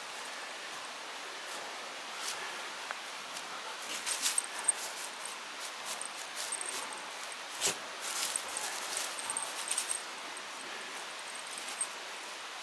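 A Shiba Inu rooting about in thin snow over grass: scattered short crunching and rustling sounds, most of them in the middle stretch, over a steady background hiss.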